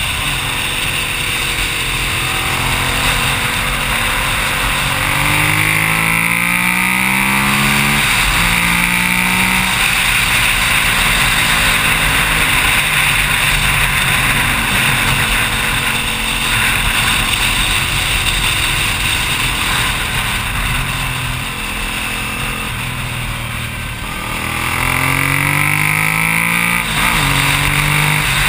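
Suzuki SV1000's V-twin engine under way, twice rising in pitch as it accelerates and dropping sharply at each upshift, with steadier running in between. Heavy wind rush on the bike-mounted camera runs under it throughout.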